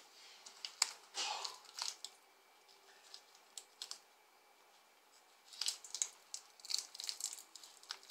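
A barbecue sauce bottle being twisted open by hand through a cloth dish towel. Scattered clicks and crinkly rustles of the towel and the cap's cut plastic wrap come in two spells: in the first two seconds and again from about five and a half seconds in.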